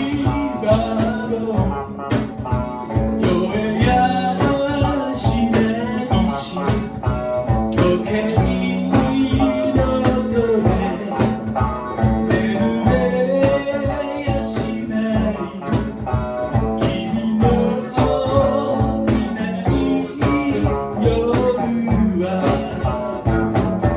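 A song performed with singing over strummed guitar and a steady driving beat.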